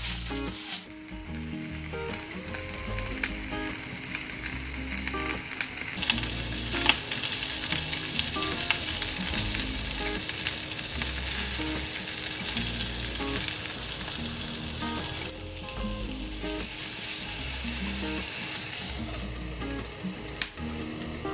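Fish fillets frying on aluminium foil in a frying pan: a steady sizzle that grows louder about six seconds in. A single sharp clack near the end.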